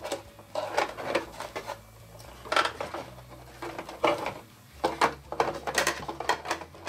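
Irregular clicks, taps and rattles of hands handling the hard plastic turret and hull of a 1/16 scale RC tank while wiring is fed through the turret ring, with the louder knocks about two and a half seconds in and around four to six seconds in.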